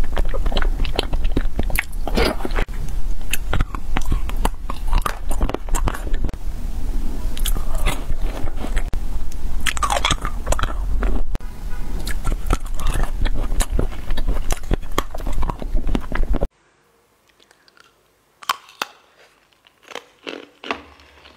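Close-miked eating of ice pops and candy: loud, dense biting and chewing, with many sharp clicks. About 16 seconds in it cuts off abruptly, leaving only faint, sparse mouth clicks.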